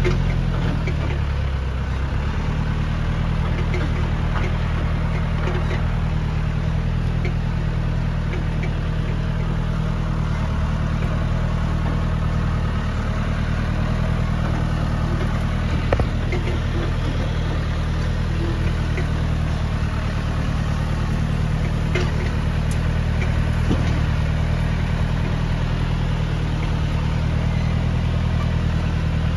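Farm tractor's diesel engine running steadily at a constant speed, with a single brief knock about halfway through.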